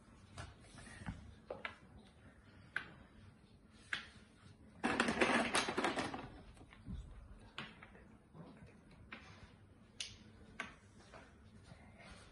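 Wooden Jenga blocks clicking and tapping on a hard stone floor as they are picked up and stood on end one at a time, in irregular single knocks, with a louder burst of noise about five seconds in.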